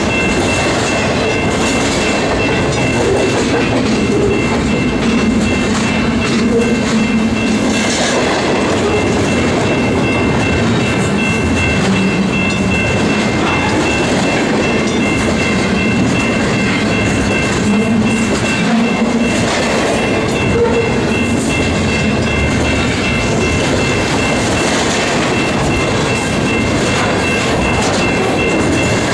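Double-stack intermodal well cars rolling past close by: a loud, steady rumble of steel wheels on rail, with irregular clicks from the wheels and a thin, steady high-pitched whine underneath.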